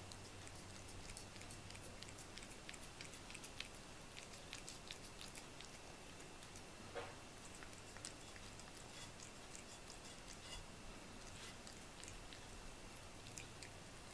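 A cat eating shredded food off a flat tray: faint, irregular small clicks of licking and chewing, with one slightly louder smack about seven seconds in.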